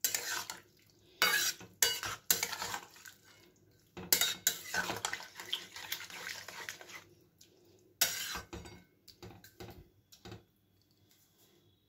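Metal spatula scraping and clinking against a metal kadai in short bouts, stirring a wet fish and vegetable curry just loosened with a little warm water. The stirring dies away near the end.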